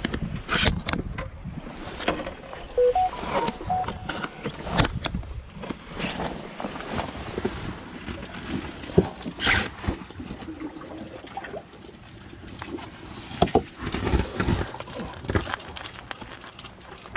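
Scattered sharp clicks and scrapes at irregular moments as a hand gropes among barnacle-crusted jetty rocks, over a low rumble of wind and surf.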